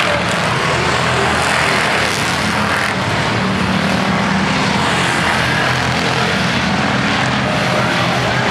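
Street stock race cars' engines running steadily as the cars race around the oval track, a loud continuous drone.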